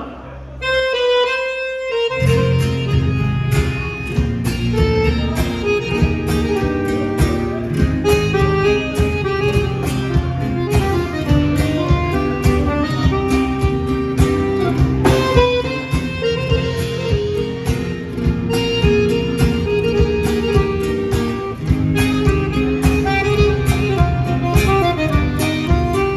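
Upbeat instrumental band music with a steady beat: a sparse opening, with the full band coming in about two seconds in.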